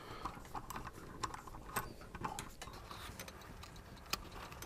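Small C-clamp being screwed down by hand, giving scattered faint clicks and ticks from its handle and threaded screw, with light metal handling of the rifle.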